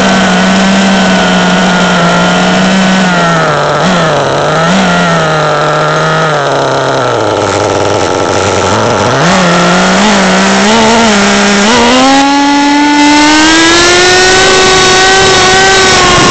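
CEN MT 3.0 RC truck's motor running and revving up and down. The pitch sags to its lowest about eight seconds in, then climbs steeply to a high, steady rev from about twelve seconds.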